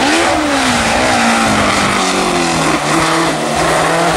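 Open-wheel single-seater racing car's engine at high revs on a hill-climb course. The pitch rises briefly at the start and falls away over about a second as the car slows for a bend, then wavers before settling into a steady, lower tone for the rest of the time.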